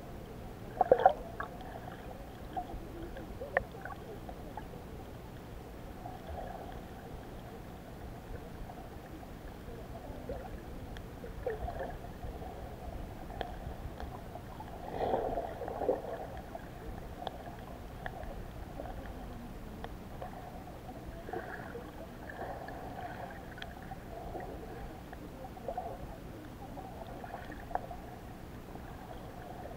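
Muffled underwater sound of shallow sea water: a steady low rush with occasional knocks, clicks and gurgling splashes. The loudest come about a second in and again around fifteen seconds in.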